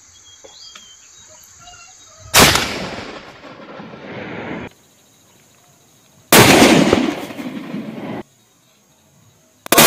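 A scoped .30-06 bolt-action rifle fired: three loud shots, about 2.3, 6.3 and 9.7 seconds in, each followed by a decaying echo. The first two echoes stop abruptly, as if cut.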